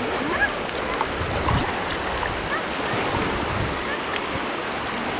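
Shallow sea water washing and lapping, with soft sloshes from wading and faint far-off voices.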